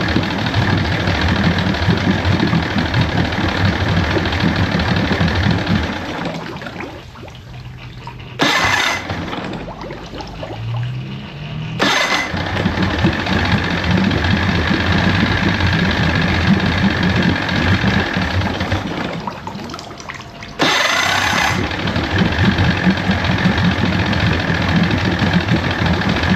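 1973 Johnson 65 hp two-stroke outboard running steadily. Twice the sound fades down and then comes back suddenly at full level.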